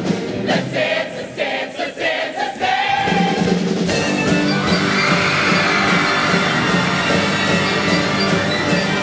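Show choir singing with its band: short rhythmic stabs, then about three seconds in a full held chord with the band.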